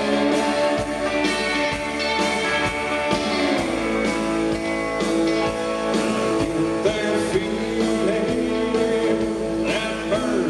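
Background rock music led by guitar, the chords shifting about three and a half seconds in.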